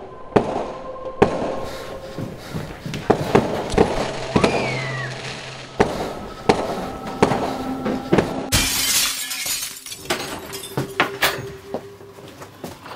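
Tense soundtrack of held tones with a string of sharp hits, and a loud crash about eight and a half seconds in.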